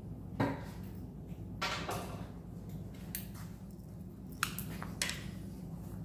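A few light, separate clicks and clinks from small screws and a switch wall plate being handled, over a steady low hum.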